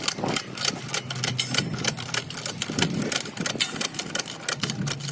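A car jack being worked to lift a car at its jacking point, with rapid, irregular mechanical clicking throughout.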